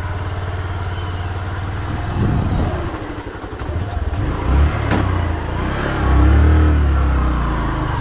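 Motorcycle engine running under a rider on a dirt road, easing off about three seconds in and then pulling harder again, loudest around six seconds in.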